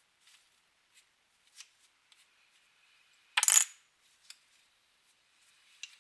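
Scattered light clicks and taps of small hard objects being handled, with one brief, loud clatter about three and a half seconds in.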